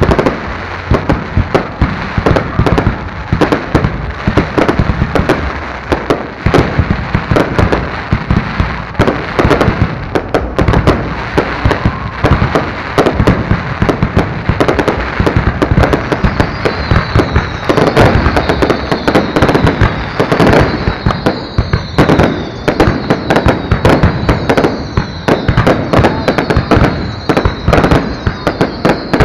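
Aerial fireworks display: a dense, continuous barrage of rapid bangs and pops from shells bursting overhead. From about halfway through, a series of high falling whistles repeats about once a second over the bangs.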